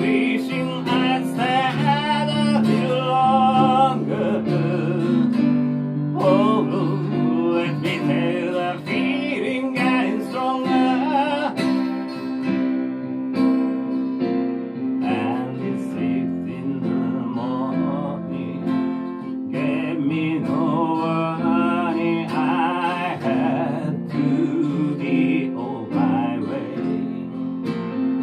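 Live acoustic-duo music: a steel-string acoustic guitar strummed over electric keyboard chords, with a sung vocal line for much of the time.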